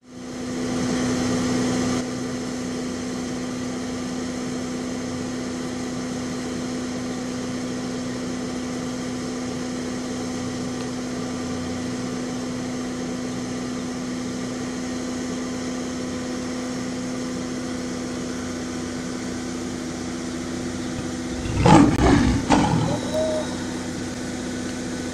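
A steady engine hum from idling vehicles. About 21 seconds in, lions growl and snarl loudly for a second or two as the male lion mates with the lioness.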